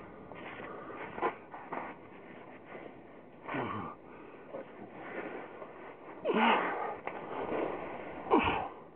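A person breathing hard with effort while scrambling over rocks, with short grunt-like vocal sounds, the loudest about six and eight seconds in.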